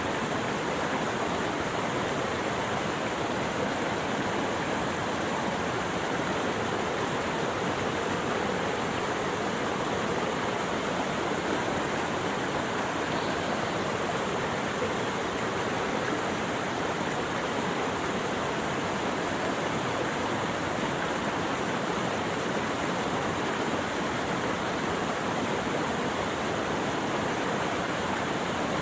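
Steady rushing water, an even, unbroken wash with no breaks or single splashes.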